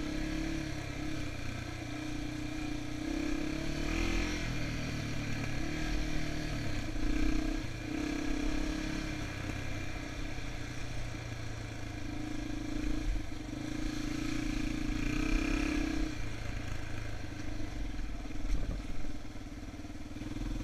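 Yamaha TT-R230 dirt bike's single-cylinder four-stroke engine running on a trail ride, its pitch rising and falling as the throttle is opened and closed.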